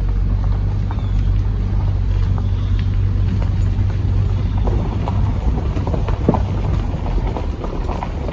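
A car's low, steady rumble heard from inside the cabin, with a few light knocks and clicks in the second half.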